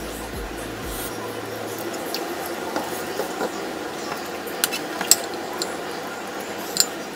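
Eating sounds at a table: soft handling of food on a plate, with a few sharp clinks of a spoon against dishes, two close together past the middle and one near the end.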